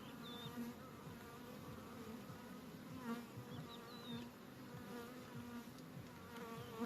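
Honeybees buzzing around an opened hive: a steady hum that wavers slightly in pitch.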